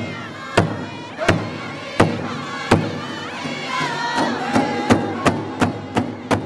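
Powwow drum group singing high-pitched in unison over a large shared drum struck by several drummers together, about one beat every 0.7 s, quickening to about three beats a second about four seconds in.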